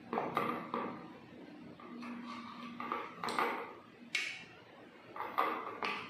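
A series of light clinks and knocks against a stainless steel serving plate, each with a short metallic ring, the sharpest about four seconds in, as rava idlis are set down on it.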